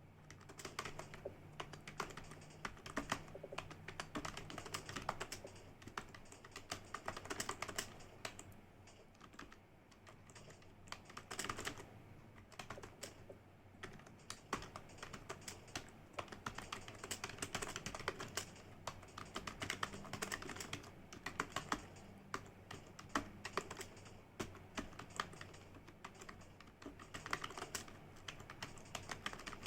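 Computer keyboard being typed on fast and continuously, a dense run of key clicks with a few brief lulls, under a faint steady low hum.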